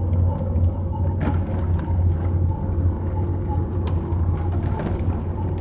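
Heng Long 1/16 radio-control KV-1E tank driving over a cardboard box: a steady low engine rumble from its sound unit, with its tracks clicking and a sharper knock about a second in.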